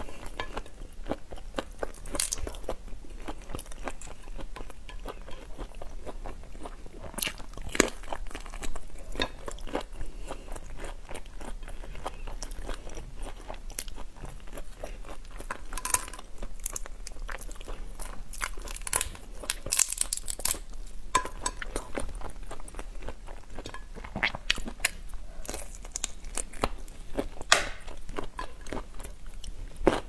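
Close-miked chewing and crunching of marinated prawns, with crackling of the shells as they are pulled apart by hand. Sharp cracks come at irregular moments, several of them in quick clusters.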